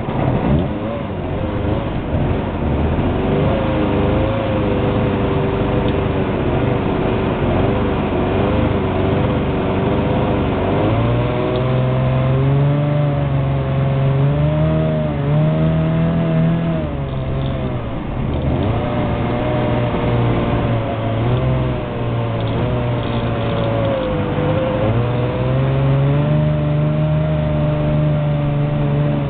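Homemade jet boat's engine running under way, its pitch rising and falling several times as the throttle is worked, easing off briefly twice in the second half.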